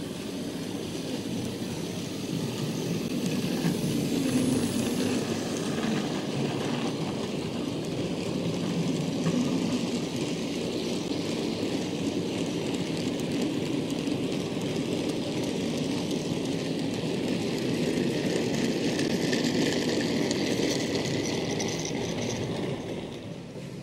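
OO gauge model goods train running past close by: the rumble of the locomotive's motor and the wagons' wheels rolling on the track, steady throughout and dropping away near the end as the brake van goes by.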